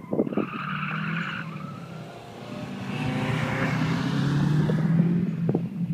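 Cars driven hard around a tight track: a short tyre squeal near the start, then engines running under load with tyres skidding, getting louder through the second half.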